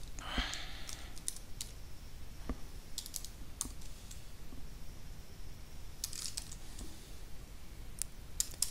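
Keystrokes on a computer keyboard, tapped in short scattered clusters with pauses between, with a brief soft rush of noise near the start.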